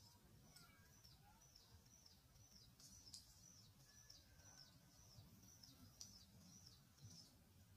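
Faint, quick repeated bird calls, a short high chirp that drops in pitch, about two or three a second, over a low outdoor hum.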